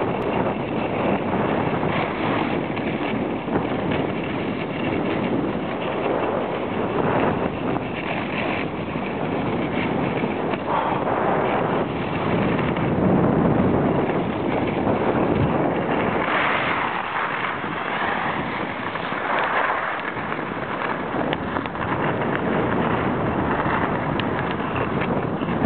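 Wind rushing over the microphone of a camera carried by a moving skier, with the hiss and scrape of skis on packed snow; a steady noise that swells and fades with speed.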